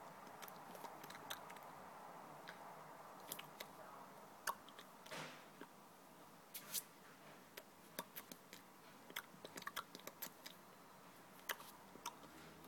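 Faint, irregular mouth clicks and lip smacks, with one short breathy puff about five seconds in.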